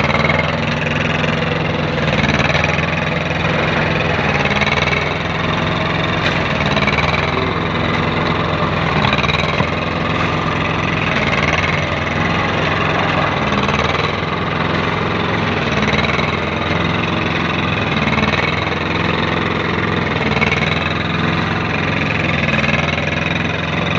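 The engine of a concrete kerb-stone making machine running steadily at a constant speed.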